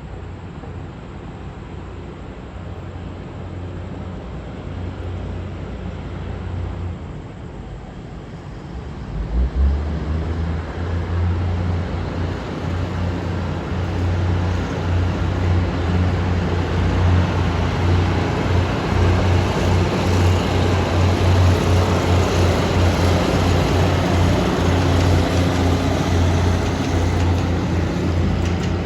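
Diesel locomotive hauling a passenger train out of a station: a steady low engine hum, a sudden surge as the engine opens up about nine seconds in, then growing steadily louder as the train gets under way.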